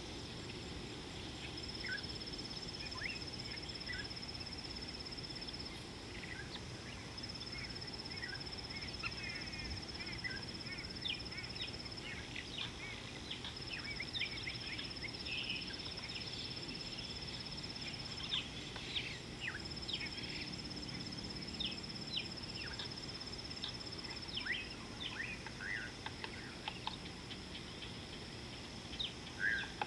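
Wild birds calling in the bush, many short chirps overlapping and growing busier about a third of the way in, over an insect's high steady trill that starts and stops in bouts of a few seconds.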